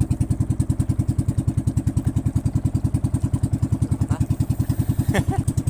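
Small fishing boat's engine running steadily, a fast even putter of about ten beats a second.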